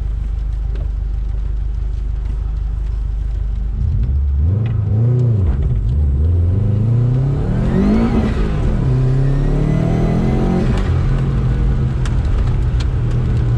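Turbocharged Subaru GC8 Impreza flat-four engine running low and steady, then revving up and down sharply from about four seconds in. It climbs to a high peak about eight seconds in, drops, and settles into a steadier pull as the car is driven hard.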